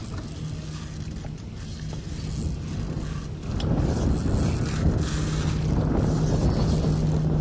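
A boat's Mercury Verado outboard engine running with a steady hum under wind on the microphone and water rushing past, getting louder about three and a half seconds in.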